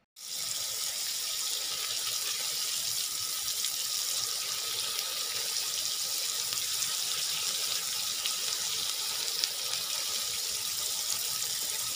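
Prawns sizzling in butter in a pan: a steady, even hiss that starts abruptly just after the start.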